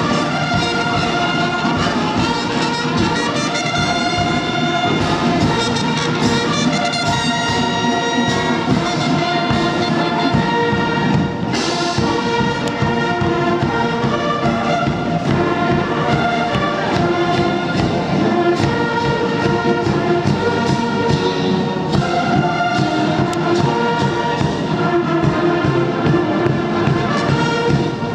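Massed military band of bugles and brass, with bass drum and cymbals, playing a march on the move. The notes are held and the drum beat is steady, with a louder high splash, like a cymbal crash, about eleven seconds in.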